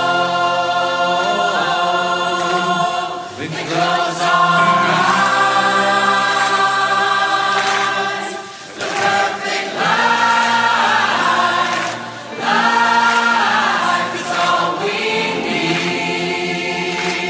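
Choral music: a choir singing long held chords that shift every few seconds.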